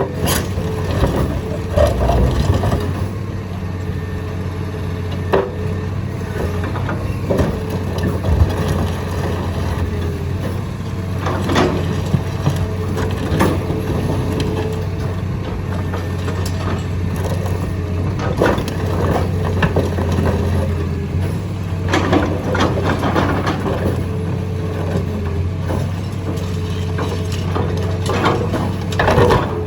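Excavator's diesel engine running steadily with a hydraulic whine, while concrete cracks and crunches as it is crushed, in sharp irregular breaks every few seconds.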